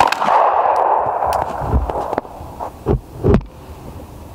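A single shot from a Glock 26 9mm pistol right at the start, its report carrying on for about a second, followed by three dull low thumps.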